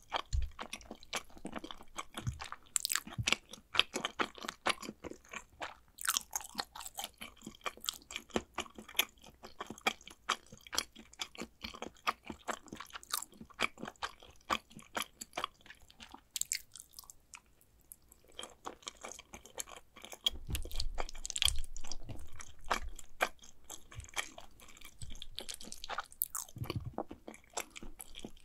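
Close-miked chewing of macaroni and cheese: dense, irregular wet mouth clicks and smacks, with a short pause a little past halfway and a few low thumps near the end.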